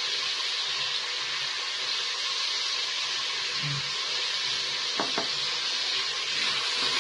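Veal and sliced onions sizzling steadily as they fry in oil and margarine in a stainless steel pot, with two faint clicks about five seconds in.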